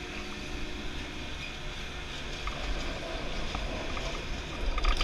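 Chairlift carrying riders up from the loading station: a steady rushing noise with a low rumble that grows louder and more uneven near the end.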